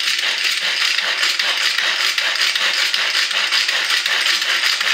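Pull-cord manual food chopper worked by hand: the cord pulled again and again spins the blades inside the plastic bowl, giving a continuous fast rattling as they chop onion pieces.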